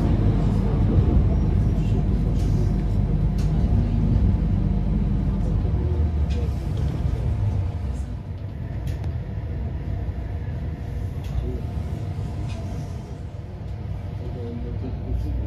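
Steady running rumble of a tram heard from inside the car as it rolls along its rails, with faint scattered clicks. The deep rumble eases about six seconds in.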